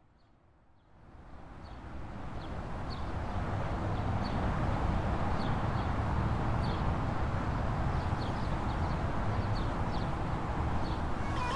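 Steady rumble of motorway traffic that fades in over the first couple of seconds, with short bird chirps repeating over it.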